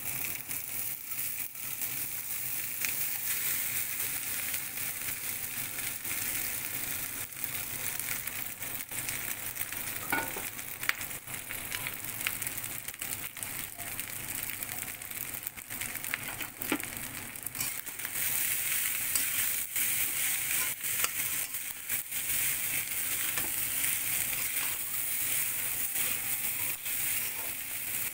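Cooked rice stir-fried in a metal kadai with hot oil and spices: a steady sizzle, with the spatula scraping and clicking against the pan. The sizzle grows louder about two-thirds of the way through.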